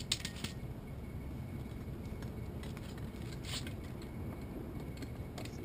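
A few short sharp clicks and taps from handling a camera tripod's head while a case is fitted to its mounting bolt, over a steady low background rumble.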